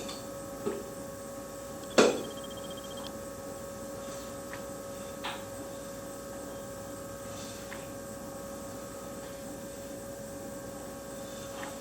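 Torque converter being turned and worked onto an automatic transmission's shafts to seat it, giving a few light clunks and one sharper knock about two seconds in, over a steady electrical hum.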